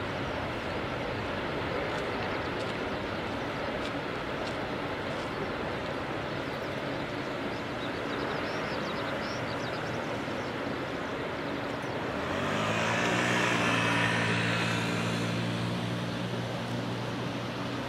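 Boeing 777-300ER's two GE90-115B turbofan engines at takeoff thrust during the takeoff roll, a steady jet roar. About twelve seconds in the roar swells louder and a low droning hum joins in.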